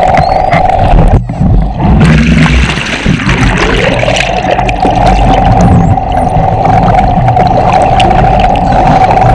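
Underwater sound of a boat's engine and propeller: a steady hum over low rushing water, which drops out briefly a little after a second in and slides back up in pitch to the same note by about four seconds in. A faint high wavering whistle, typical of a bottlenose dolphin, comes about six seconds in.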